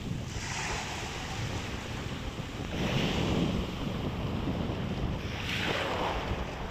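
Small waves washing up on a sandy beach, swelling three times a couple of seconds apart, with wind rumbling on the microphone.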